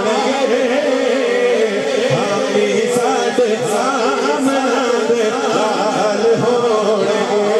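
A man sings a Punjabi naat (devotional praise of the Prophet) into a microphone, holding a continuous, wavering, ornamented melodic line.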